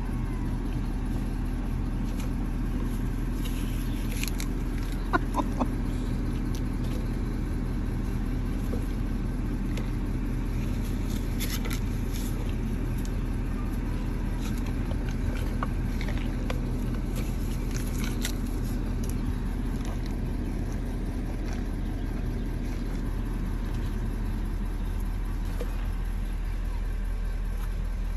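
Pickup truck engine idling steadily, a low even hum heard from inside the cab, with a few brief clicks about five seconds in.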